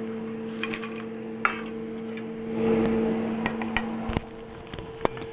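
Plates and a bowl of fried tortilla chips being handled on a counter: scattered clicks, knocks and dish clatter. Under them runs a steady electrical hum that cuts out about four seconds in.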